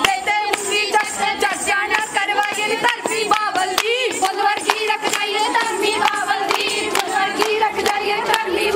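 Group of women singing Punjabi folk boliyan together, with steady hand-clapping keeping time at about two claps a second.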